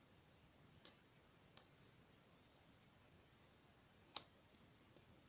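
Near silence with a few faint clicks and taps from fingers handling a phone, the loudest about four seconds in.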